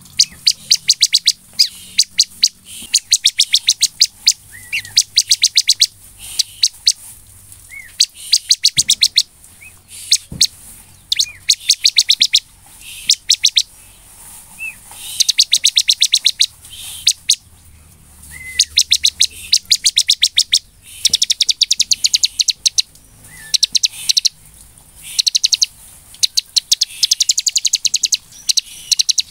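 Bar-winged prinia (ciblek) in full, vigorous song: runs of rapid, sharp high chirps lasting a second or two each, repeated over and over, with a few short whistled notes in between.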